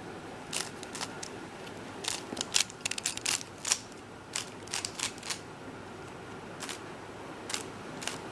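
Dayan ZhanChi 3x3 speedcube being turned layer by layer, giving quick irregular clicks of plastic pieces snapping into place, some in fast runs and some alone with short pauses between.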